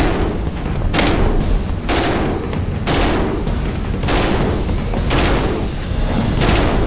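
HK21 belt-fed 7.62 mm machine gun firing short bursts in three-shot burst mode, about seven bursts at roughly one a second.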